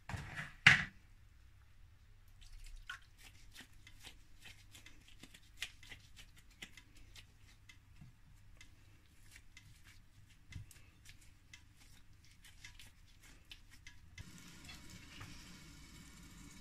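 A wooden spoon knocks once, sharply, against a clay tajine, followed by faint scattered clicks and soft wet squishes from gloved hands shaping minced meat into balls. A steady hiss starts suddenly near the end.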